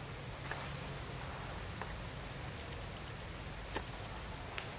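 Outdoor tree-canopy ambience: a steady high-pitched insect drone over a low rumble, with a few faint clicks.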